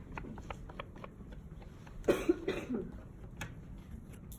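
Repeated light, rapid scratches of a tool scoring soft clay coils, to roughen them before they are joined with slip. A brief cough about two seconds in is the loudest sound.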